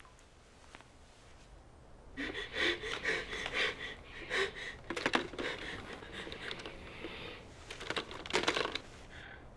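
An old rotary telephone handled in haste: a run of sharp clicks and rattles from the dial and receiver, mixed with quick breathy sounds. It starts about two seconds in, with a second loud flurry near the end.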